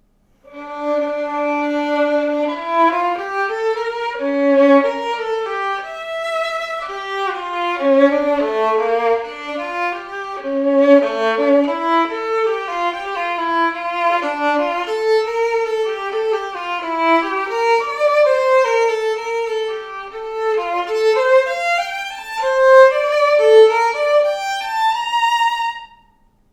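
Solo violin, built on the Guarneri del Gesù model, bowed through an unaccompanied melody of held notes and quicker passages.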